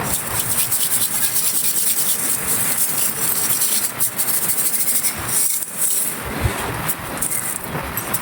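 Dry, crumbly clay texture being crumbled and crushed, a dense crisp crackling made of many small snaps, with a brief lull about five and a half seconds in.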